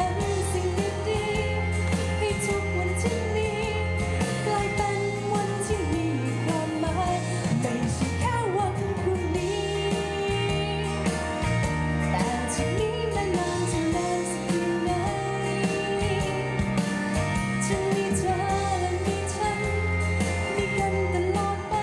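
A woman singing live into a handheld microphone over pop backing music, her voice amplified.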